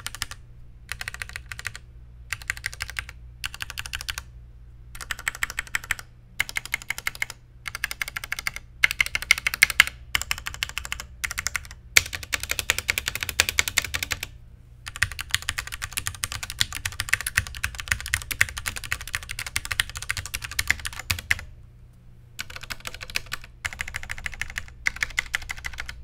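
Typing on a Ducky One 2 Mini 60% mechanical keyboard with Cherry MX Red linear switches: fast runs of key clacks in bursts, broken by short pauses, with the longest unbroken run in the middle.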